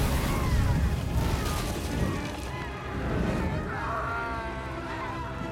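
Dragonfire sound effect: a burst of flame over a deep rumble, with several men screaming as they burn.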